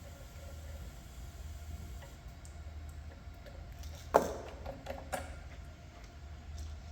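A sharp metallic clink about four seconds in, then a few lighter clicks, over a steady low hum: hand tools and fittings handled while valve cores are put back into the service ports.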